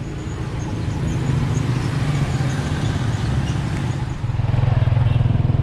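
Road vehicle's engine running steadily while under way, with a pulsing low hum that grows louder about four seconds in as it picks up power.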